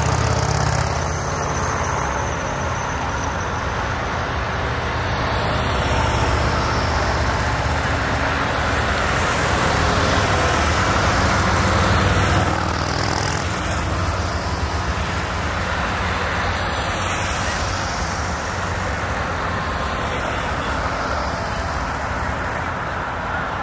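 Motorcade of police cars and SUVs driving past on a city street: a steady rumble of engines and tyre noise.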